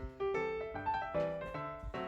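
Background music: a piano melody of single notes, each struck and fading, a few notes a second.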